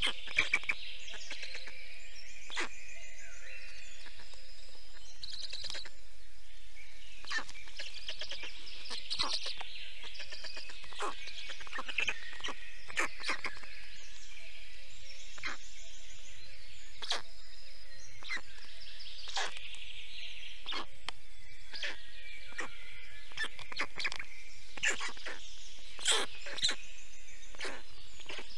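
Small forest songbirds singing and chirping throughout, with scattered short sharp calls or clicks, the loudest a couple of seconds before the end, over a faint steady hum.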